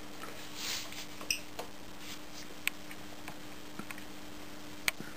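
A few scattered sharp clicks from the front-panel buttons and switching of a Keithley 2015 bench multimeter being set to AC current, the strongest near the end, over a steady low hum.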